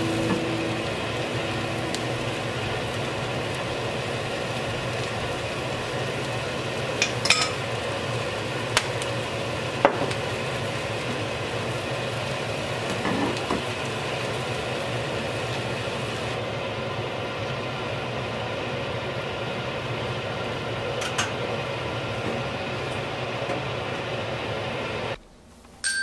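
Sliced mushrooms, leek and onion sizzling steadily in a cast-iron pot over a gas burner, with a few faint ticks. The sizzle cuts off abruptly near the end.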